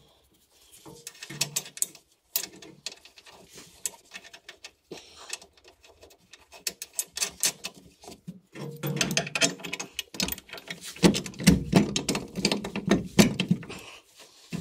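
Light metallic clicks and rattles of nuts and washers being handled and threaded onto steel mounting bolts, with a denser run of clicking in the second half.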